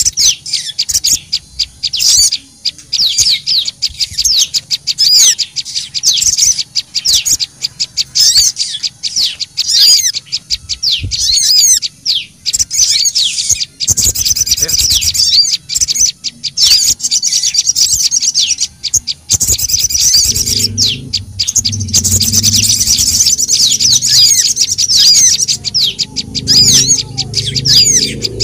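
Small songbirds, sogon and prenjak lumut, calling in a bird-lure recording: dense, fast, agitated high-pitched chirps and trills with hardly a break. A steady low rumble joins about two-thirds of the way through.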